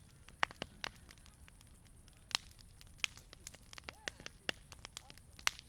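Wood campfire crackling: irregular sharp pops and snaps of varying loudness, the strongest about two and a half seconds in and again near the end, over a soft low hiss from the fire.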